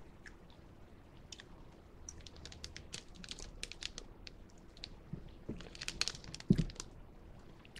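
Plastic snack pouch crinkling as it is handled and turned over, a rapid run of sharp crackles, with one dull thump near the end.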